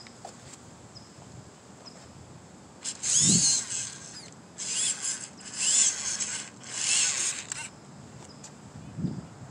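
Small electric motor and gearbox of a radio-controlled scale truck whining in four bursts of throttle, the pitch rising and falling with each burst.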